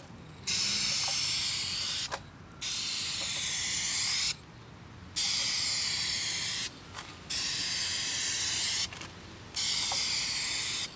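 Aerosol spray-paint can hissing in five bursts of about a second and a half each, with short pauses between them, as base coat is sprayed onto a car body panel.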